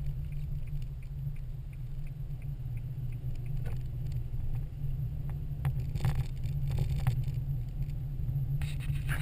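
Steady low rumble of a car driving slowly on snow-packed road, heard inside the cabin. In the first half there is a run of faint, evenly spaced ticks from the turn-signal flasher as the car turns, and a few sharp knocks from the middle on.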